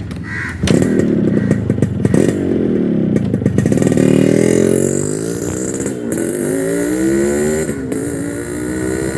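Yamaha RX135 single-cylinder two-stroke motorcycle engine starts loud about a second in, revving up and down several times. Its sharp exhaust beat comes from a silencer whose core was altered, which the owner credits for the sound.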